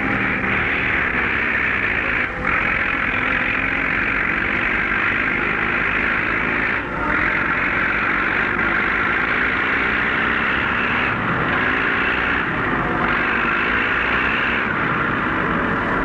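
International Harvester TD-24 crawler bulldozer pushing its blade through dense scrub and timber. On an old 16mm film soundtrack it is heard as a loud, steady rushing noise of engine and crashing brush, with brief dips about two and a half and seven seconds in.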